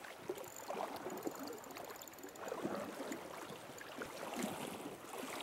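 Shallow river current running over a gravel bed, water swirling and gurgling around a wader's legs and a landing net held in the flow.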